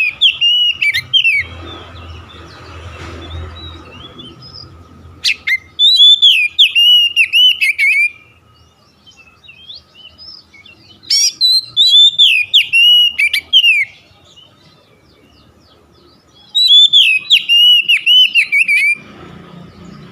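Oriental magpie-robin (kacer) singing: four loud phrases of quick, repeated falling whistles, each lasting two to three seconds, separated by pauses of a few seconds.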